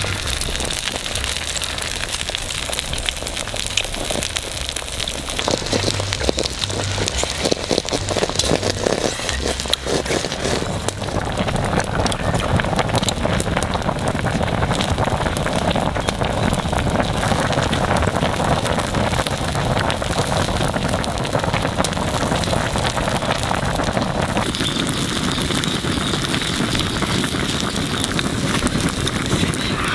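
Open wood fire crackling under a wok of broth that is boiling hard, a dense hiss of bubbling and fine popping. The sound shifts in character about ten seconds in and again about twenty-five seconds in.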